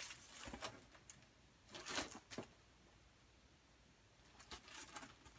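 Faint rustling of paper doll sheets being handled and leafed through: a few soft rustles, the clearest about two seconds in, with near silence between them.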